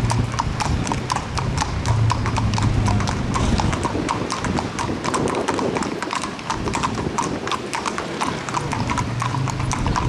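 Several horses' hooves clip-clopping on asphalt at a walk. The steps fall in an irregular, overlapping patter of sharp clicks as the horses pass close by.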